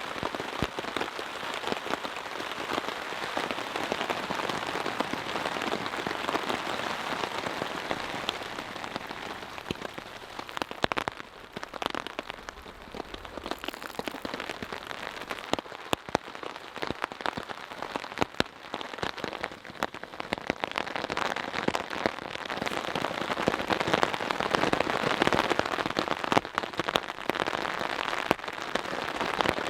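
Rain falling on a tarp shelter, a dense steady hiss with many separate heavy drops striking sharply. It eases for a while about a third of the way through, then grows heavier again in the last third.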